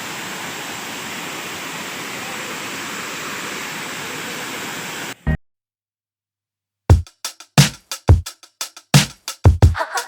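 Steady rush of a waterfall, which cuts off abruptly about five seconds in. After a second and a half of silence, music with a heavy, punchy beat starts.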